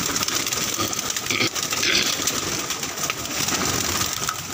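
A loft full of domestic pigeons cooing and fluttering their wings, over a steady background hiss.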